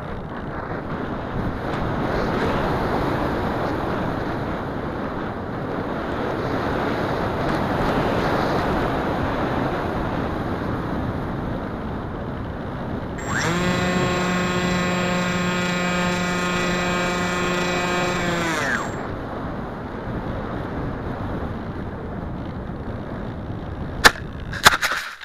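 Wind rushing over a small onboard camera's microphone on a Wing Wing Z-84 flying wing in flight. About halfway through, its electric pusher motor comes in with a steady whine for about five seconds, then winds down. Near the end, a few sharp knocks as the plane hits the grass on landing.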